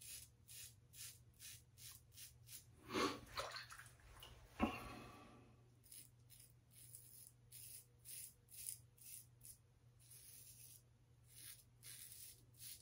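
Double-edge safety razor with a light 3D-printed plastic head and a thin Wilkinson Sword blade scraping through two days of stubble on the neck in short strokes, about two a second, in three runs with brief pauses. The strokes are noisy because the razor is so light and the blade thin. A sharp knock comes about four and a half seconds in.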